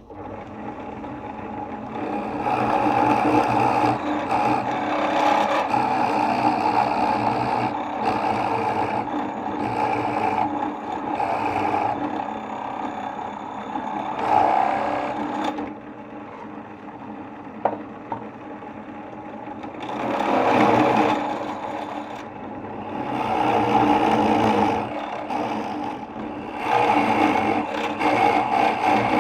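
A small motor running continuously, its sound swelling and easing several times.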